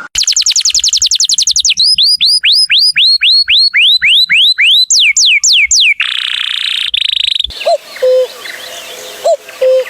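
Bird-like calls. First a fast run of high falling whistled notes, then slower falling whistles about three a second. About six seconds in comes a buzzy trill, then quieter repeated low notes with faint chirps.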